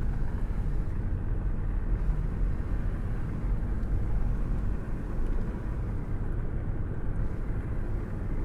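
Water of Niagara Falls pouring down: a steady low rushing noise that does not break or change.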